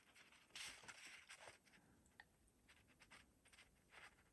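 Near silence with faint rustling and one small click: quiet handling of a paper pad while its punched holes are measured.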